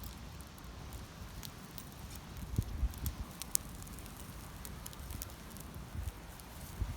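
Wood campfire crackling, with sharp pops and snaps scattered irregularly over a low rumble.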